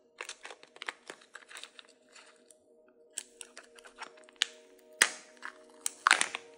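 Crinkling and peeling of the thin plastic seal on a Kinder Joy egg half: a run of small crackles and clicks, with a sharper crackle about five seconds in and another just after six. Soft background music with held notes plays underneath.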